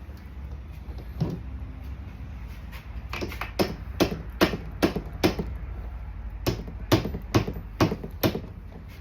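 A run of sharp knocks: one single knock, then two bursts of about half a dozen, at roughly two a second, during work on a scooter engine's top end.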